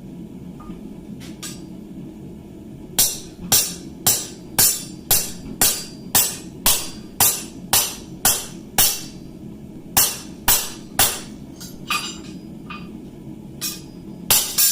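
Blacksmith's hand hammer striking steel on an anvil: a run of about a dozen sharp, ringing blows at roughly two a second starting about three seconds in, then a short group of three and a few scattered lighter blows.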